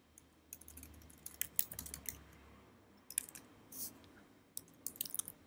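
Computer keyboard keystrokes in irregular clusters of quiet clicks as a shell command line is edited and retyped.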